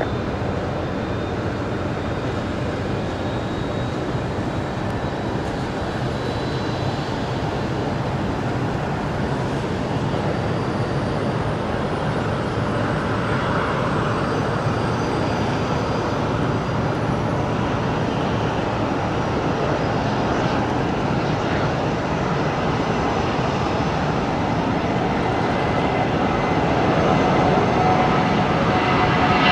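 Jet engines of a departing airliner: a steady rumble that swells slowly and grows louder with a rising whine near the end.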